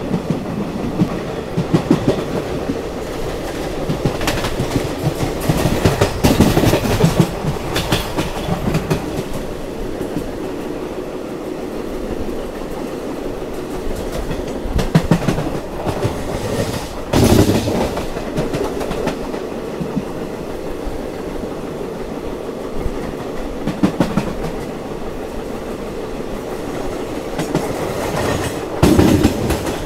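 Moving passenger train heard from on board: a steady running rumble with wheels clattering over rail joints, and several louder clacks at irregular intervals, the strongest a little past halfway and near the end.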